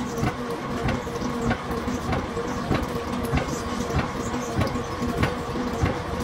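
Steady machine-shop motor hum with irregular sharp metallic clicks and knocks, roughly two a second.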